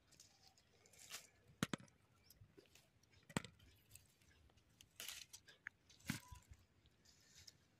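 Faint rustling of tomato plants and a few short knocks as green tomatoes are picked and dropped into a woven bamboo basket.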